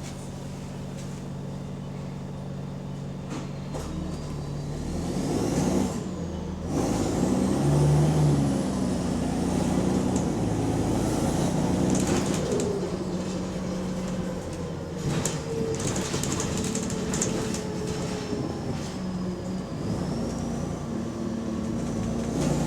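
Diesel bus engine pulling away and working up through the gears, with a high whine that rises and falls and short hissing bursts. The bus has an exhaust leak.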